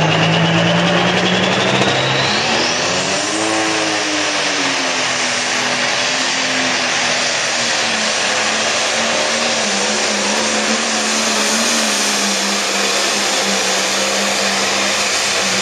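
Pro stock pulling tractor's turbocharged diesel engine running at full load while dragging the weight sled, with a high whine climbing in pitch over the first few seconds. The engine pitch swells and dips, then holds steady and loud.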